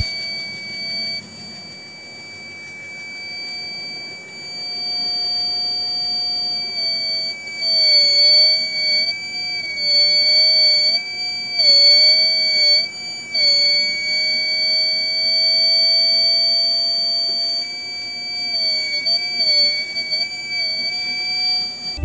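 Buzzer of a homemade BC557-transistor and LDR fire-alarm circuit sounding a continuous high-pitched tone, set off by a flame held to the sensor. The tone wobbles in pitch and loudness at times.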